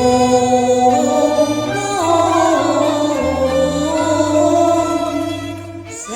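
Cantonese opera music: a melody in long held notes that slide in pitch, over a low bass line that changes note every second or so, with a short break near the end.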